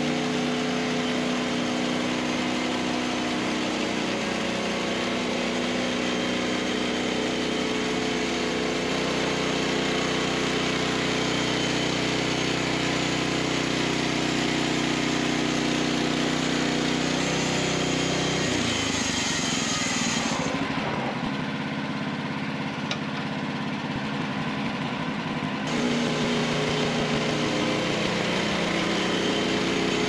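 Wood-Mizer LX55 band sawmill running steadily as it saws a tulip poplar log. About 18 seconds in, the engine's tone drops and shifts, and the sound changes abruptly again around 20 and 26 seconds.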